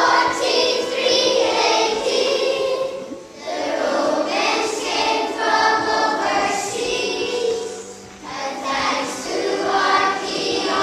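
A group of young children singing together, in phrases with short breaths about three and eight seconds in.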